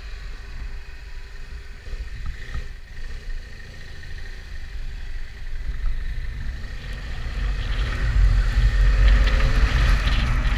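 Motorcycle engine and wind rush on a helmet-mounted microphone as the bike pulls away and gathers speed. The low rumble grows clearly louder over the last few seconds.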